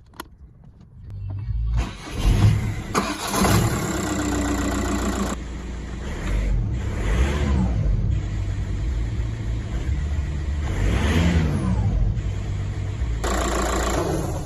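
Freshly rebuilt Audi A3 2.0 TDI Pumpe-Düse four-cylinder diesel engine starting up, then running with two short revs, each rising and falling in pitch.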